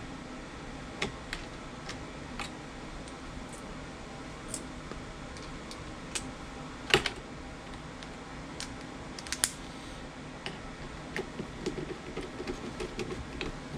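Irregular light clicks and taps of hand tools and small metal parts being handled while fitting parts onto a replacement furnace inducer draft motor, with a sharper click about seven seconds in and again near nine and a half seconds, over a steady background noise.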